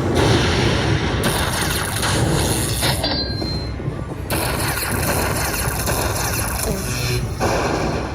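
Slot machine sounding off after a small jackpot win: electronic win music and chimes over the din of the casino floor.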